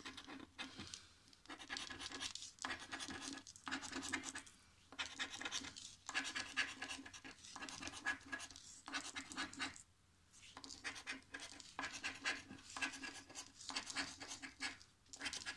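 Scratch-off lottery ticket being scratched with a green plastic coin-shaped scraper: fast rasping back-and-forth strokes in short bursts with brief pauses between them, and a longer pause about ten seconds in.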